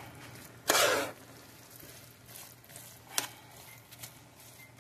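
Fried rice and vegetables being stirred and turned in a pan with a metal spoon: a short scraping rush about a second in and a sharp click of the spoon on the pan about three seconds in.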